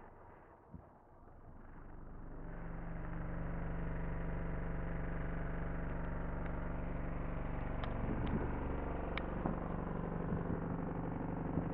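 Steady bass test tone played through two Kicker L7 15-inch subwoofers in a sealed box, heard from outside the closed vehicle. The tone fades out and a new one fades in over the first two seconds, then holds steady, with a few short ticks near the end.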